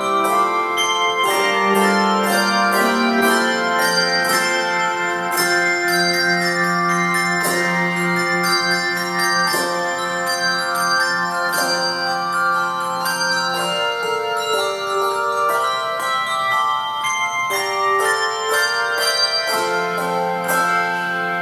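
Instrumental music with many struck, ringing bell-like notes over sustained low held notes that shift every few seconds.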